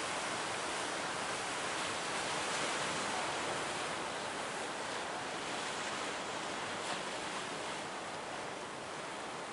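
Large ocean waves breaking: a steady rush of surf, easing off slightly toward the end.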